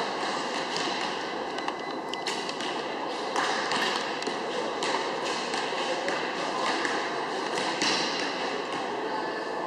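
Recurve bows being shot along a shooting line: scattered sharp knocks of bowstrings released, over a steady background murmur.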